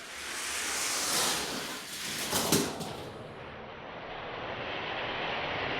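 Hot Wheels diecast cars rolling fast down a plastic drag track, a steady rushing rattle of small wheels, with a few sharp plastic clacks about two and a half seconds in. After that the rush goes duller and steady.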